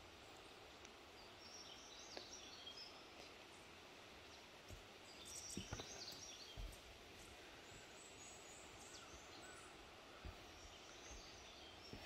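Quiet woodland ambience with faint, distant birdsong coming in a few short bursts, and a few soft low thumps scattered through.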